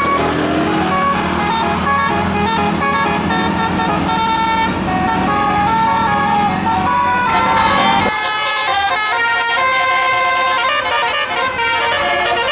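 Bus telolet musical horn (Basuri type) playing a melody of held notes that change pitch every fraction of a second, over the bus engine's low rumble. The rumble falls away abruptly about eight seconds in while the horn melody goes on.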